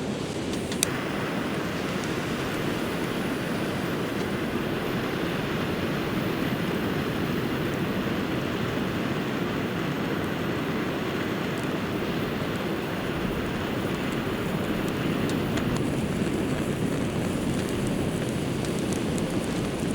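Steady surf from the sea, with wind on the microphone: an even, unbroken rush.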